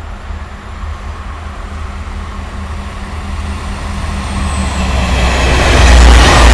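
Diesel locomotive hauling a freight train, approaching and passing close by. Its low engine drone grows steadily louder, and wheel and rail noise swells to a peak as it draws level near the end.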